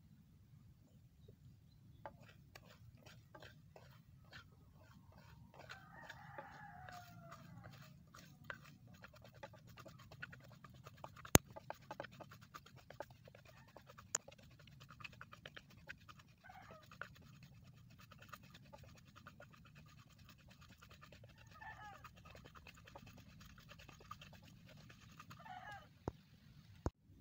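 Rice grains roasting dry in a pan over a wood fire: faint scattered crackles and ticks from the toasting grains and the burning wood, with one sharper snap about eleven seconds in. A bird calls a few times in the background.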